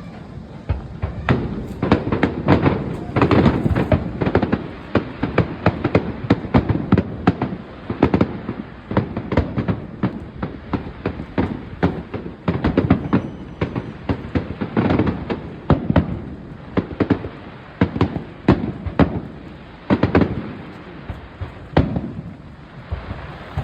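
Fireworks display going off: a dense, irregular stream of bangs and crackling shell bursts, with louder volleys about 2–4 seconds in and again around 15, 20 and 22 seconds in.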